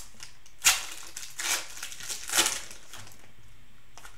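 Cellophane wrapper of a trading-card cello pack being torn open and crinkled by hand: three crackling bursts in the first two and a half seconds, the first the sharpest and loudest.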